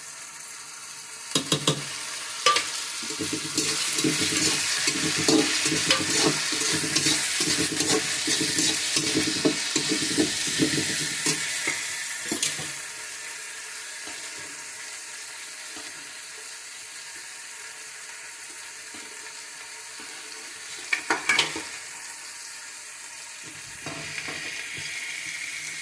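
Chopped capsicum sizzling in hot oil in a pan while being stirred, the spatula scraping and knocking against the pan. The sizzle is loudest in the first half and then settles lower, with a few sharp knocks near the end.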